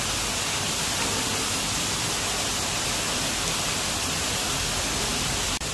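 Steady, even hiss of background noise with no distinct events, ending in a brief click and dropout about five and a half seconds in.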